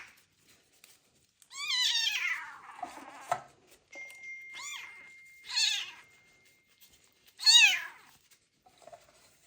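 A young kitten meowing four times, the first cry long and falling in pitch, the others short.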